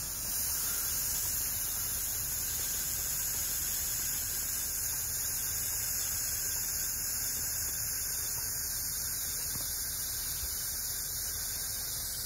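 Aerosol can of wasp spray hissing in one long, steady blast.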